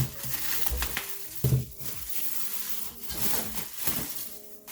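A cardboard box being opened, with packaging material rustling and crinkling and a couple of knocks as parts are handled.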